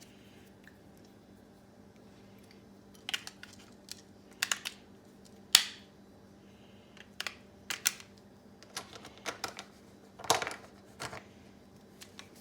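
AAA batteries being pushed into the plastic battery compartment of an electric salt and pepper grinder: a run of irregular small clicks and taps, the sharpest about five and a half seconds in, over a faint steady hum.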